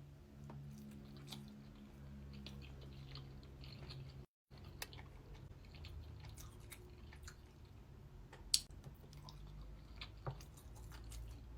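Close-miked chewing of salmon nigiri: soft wet mouth sounds and small clicks, one sharper click about eight and a half seconds in. A low steady hum runs through the first four seconds.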